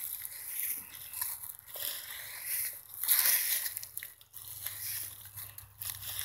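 Dry leaves and loose soil crunching and rustling in irregular bursts, loudest about three seconds in.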